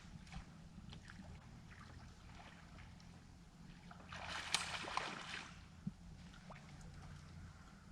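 Faint water sloshing around a small anchored boat, with a brief splashing rush about four seconds in and a few small knocks.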